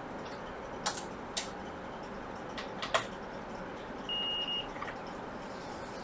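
Multimeter continuity beeper giving one short high beep about four seconds in, the sign that the probes are touching two points on the laptop motherboard that are connected; a few light clicks of the probe tips on the board come before it.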